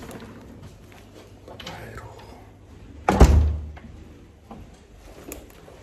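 A single heavy thump about three seconds in, amid a few quieter knocks and clicks.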